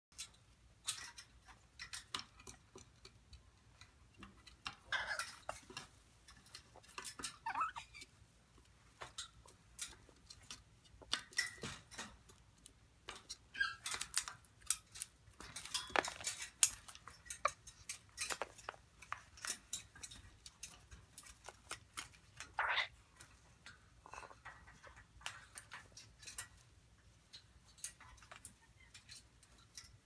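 Young African grey parrots clambering about a wire cage, their beaks and feet clinking and tapping on the metal bars in scattered, irregular clicks.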